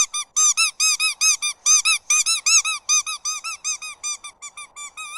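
Squeaky dog toy squeezed rapidly, about five short squeaks a second, each rising and falling in pitch. The squeaks get shorter and softer toward the end.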